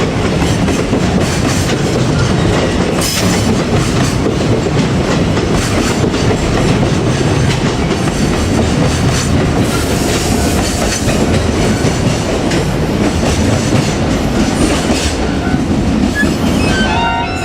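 Container freight train rolling past at close range, its wagon wheels clattering steadily over the rail joints. A pitched tone starts right at the end.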